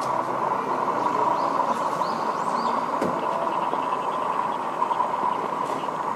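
Fuji Dream Airlines Embraer E-Jet on final approach with gear down, its turbofan engines giving a steady jet drone.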